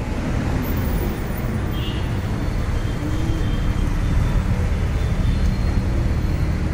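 Steady low rumble of road traffic and vehicles.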